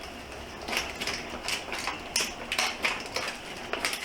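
Irregular crinkling and clicking of packaging and small parts being handled, a dozen or so sharp crackles at uneven intervals.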